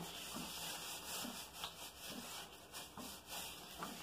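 Gloved hands rubbing dry spice rub into raw pork ribs, making faint, repeated soft rubbing strokes about two or three a second.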